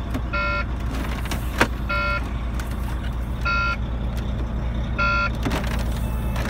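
Truck's low-air-pressure warning buzzer beeping about every one and a half seconds over the steady hum of the idling engine: the air-brake system pressure is still below 55. A single sharp click comes about a second and a half in.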